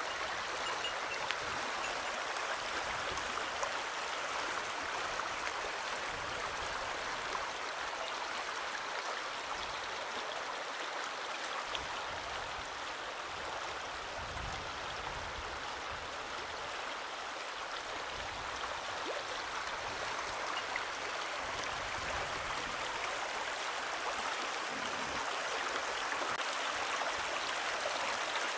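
Shallow stream running over stones and gravel, a steady babbling rush of water.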